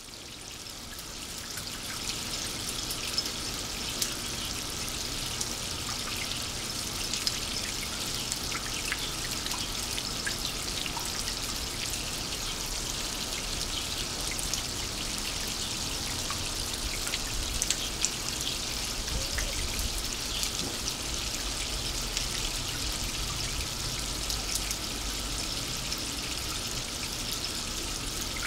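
Rainwater trickling and splashing down a pure copper rain chain of open links: a steady hiss of running water with many small sharp drips, fading in over the first couple of seconds.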